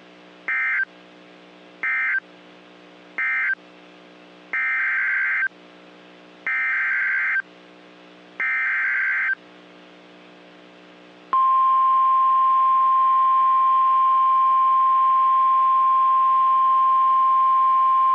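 NOAA Weather Radio Emergency Alert System data bursts. First come three short end-of-message bursts, then three longer SAME header bursts, each a harsh warbling screech. About 11 seconds in, the steady 1050 Hz warning alarm tone starts, announcing a new warning. A faint low hum fills the gaps between bursts.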